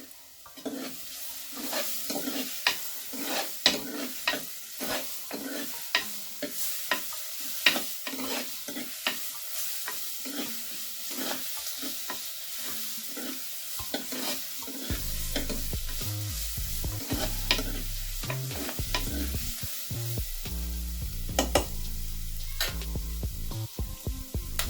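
Onion, green chilli and ginger-garlic paste sizzling in hot oil in a pan while being stirred, with many sharp scrapes and knocks of the spoon against the pan. The paste is being fried until its raw smell is gone.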